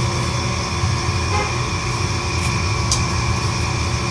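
Steady low machine hum of kitchen equipment, with two brief crinkles of plastic bags being handled about two and a half and three seconds in.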